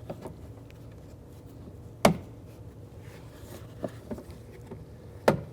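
A few sharp clicks as a door lock rod and its plastic clip are handled and fitted inside a Chevy Avalanche rear door. The loudest comes about two seconds in and another near the end, with a couple of lighter taps between.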